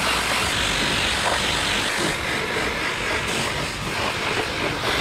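Pressure washer jet spraying water onto a Cummins 6BT diesel engine block: a steady, loud hiss of spray.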